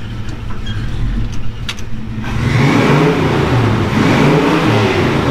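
Chevrolet 348 W-series V8, just rebuilt with new rod bearings, idling and then revved hard about two seconds in, rising and falling a couple of times: a first hard run to see whether the new bottom end holds up.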